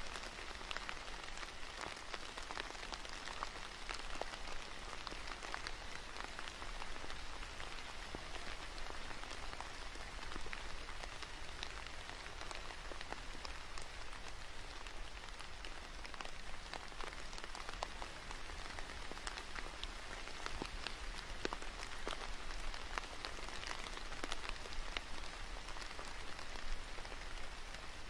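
Steady rain falling, an even hiss dotted with many separate drop ticks.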